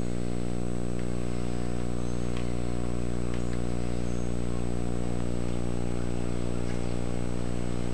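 Steady electrical hum with many overtones over a constant hiss, a buzz running at an even level in the recording's audio.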